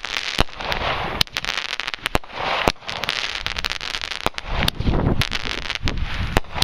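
Consumer fireworks going off close by: an irregular run of sharp pops and crackles over a fizzing hiss, with a low rumble joining in the last couple of seconds.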